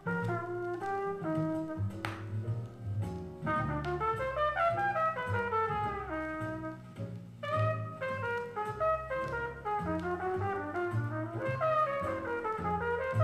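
Small-group jazz played from a vinyl LP: a trumpet line over a walking bass line, with occasional cymbal strikes.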